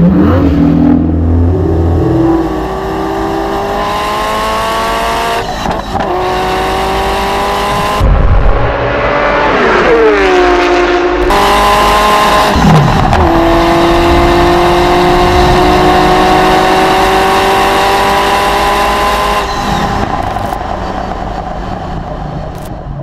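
Ferrari F40's twin-turbo V8 accelerating hard through the gears. The revs climb steadily in each gear and drop at each upshift, several times over, and the engine fades away near the end.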